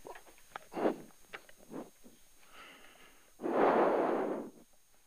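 Heavy breaths blown into a helmet intercom microphone: a short puff just before a second in and a long exhale past three seconds, with a few light clicks between.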